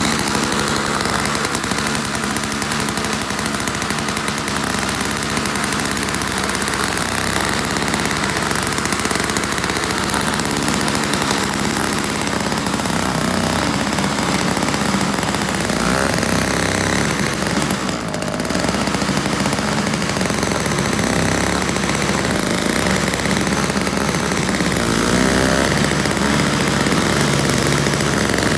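Toro CCR 1000 single-stage snowblower's 3-horsepower Tecumseh engine running steadily at full throttle while its new rubber paddles throw snow, with a brief dip in level about eighteen seconds in.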